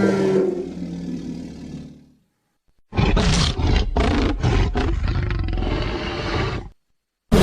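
Monster roar sound effects: a pitched roar fading out over the first two seconds, then after a short silence a rough, raspy growling roar in several surges lasting about four seconds, which cuts off abruptly.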